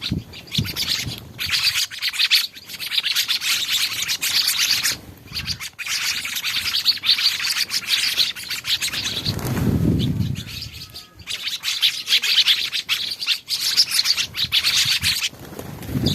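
Many small birds chirping rapidly and continuously, a flock calling over one another at feed, with a brief low whoosh about two-thirds of the way through.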